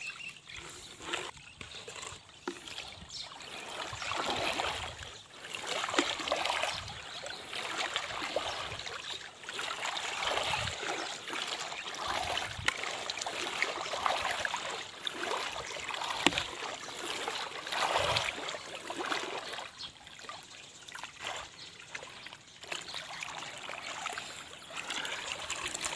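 Shallow river water splashing and trickling as someone wades through it and rummages along the pebbly bottom by hand, rising and falling in repeated swells.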